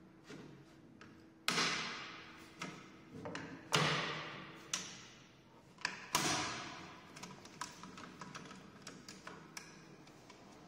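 Exercise bike handlebar knocking against the metal stem and frame as it is fitted, a few loud clunks that ring briefly in the first six seconds, then a run of light clicks and taps as the clamp knob is handled.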